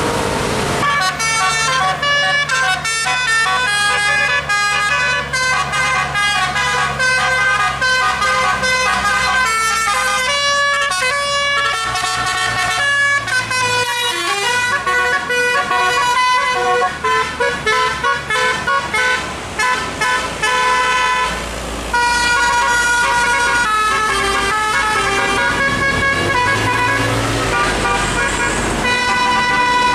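A bus's multi-tone telolet musical air horn playing a fast, tuneful run of short notes, with some longer held notes later, over a steady low engine hum.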